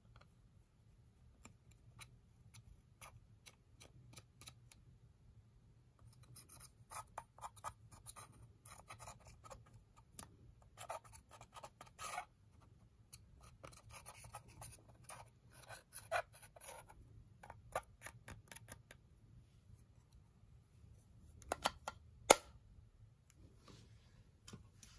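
Pressed eyeshadow powder being scraped and crumbled over toothpaste slime: bursts of dry scratching and crackling clicks, with one sharp click near the end.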